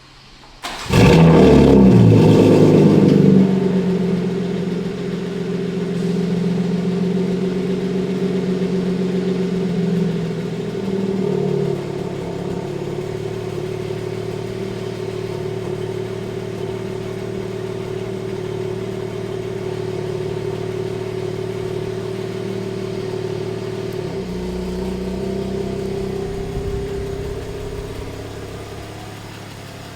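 BMW G82 M4's S58 twin-turbo straight-six starting up with a loud rev flare for a couple of seconds, then settling to a steady idle.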